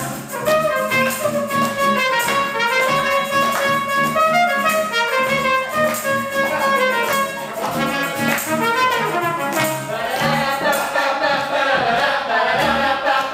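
Live acoustic music for a dance: voices singing over guitar and upright bass, with a steady beat.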